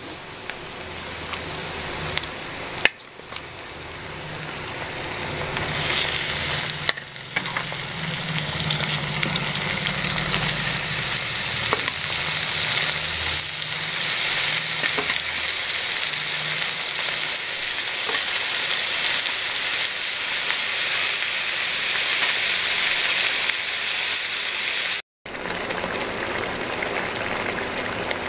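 Yogurt-marinated chicken, onions and green chillies sizzling in hot ghee in a kadai while a steel spatula stirs them. The sizzle swells about six seconds in and stays loud. There is a sharp knock about three seconds in, and the sound cuts out for an instant near the end.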